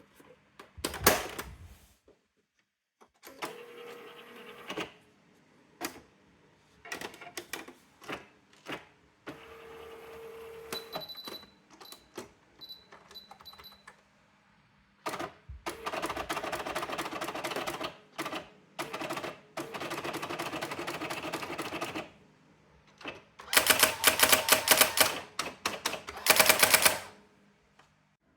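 Brother AX-425 electronic daisywheel typewriter at work: scattered clicks and short carriage movements with a brief motor hum, a few short high beeps about halfway, then long runs of rapid print strikes as it types out lines, loudest near the end.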